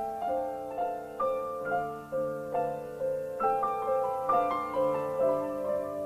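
Background music: a keyboard playing an even run of sustained notes that change about twice a second.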